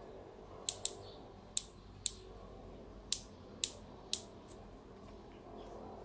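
Adjustment turret knobs on a BSA 4-16x44 rifle scope being turned by hand: about seven sharp, separate clicks at uneven spacing.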